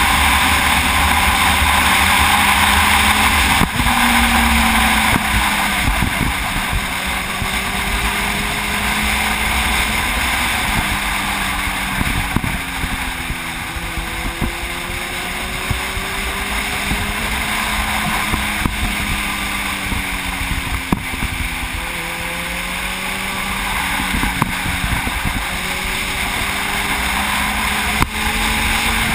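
Sport motorcycle engine running at road speed, its pitch gliding up and down with the throttle through the bends, under heavy wind rush on the microphone.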